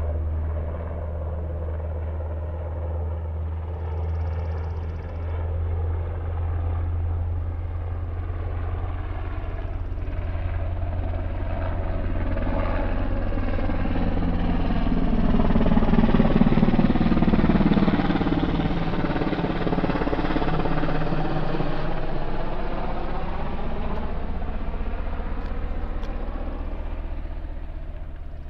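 Helicopter with a four-bladed main rotor flying low overhead: its rotor and engine noise builds, peaks a little past halfway as it passes over, then fades as it moves away, with a sweeping, phasing sound as it goes over.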